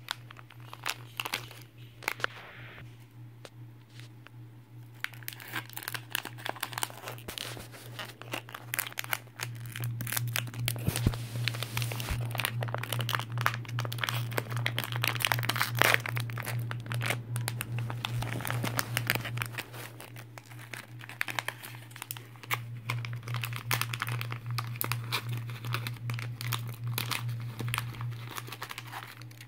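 Shiny plastic wrapper of a Pikmi Pops surprise toy being crinkled and torn open by hand: a dense run of crackles, louder in the middle, over a steady low hum.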